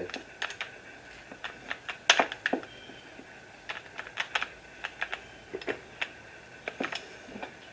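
Scattered light clicks and taps from tools and a metal bracket being handled while a drill is set up, the loudest about two seconds in.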